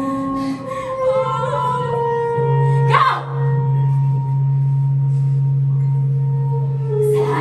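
A low droning hum with higher held tones above it, broken by a short sharp shriek about three seconds in and another near the end.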